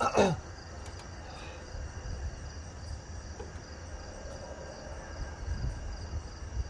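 A short exclamation falling in pitch right at the start, then a steady chorus of night insects chirping over a low outdoor rumble.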